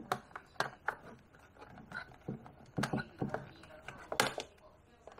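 Scattered sharp plastic clicks and knocks from the back casing of a large digital wall clock being handled as its cord is tucked in and the back is closed up, with one louder knock about four seconds in.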